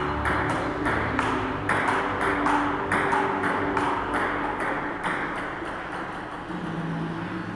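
Table tennis rally: the ball clicks off the paddles and the table in quick succession, about three hits a second, and the rally dies out about five seconds in.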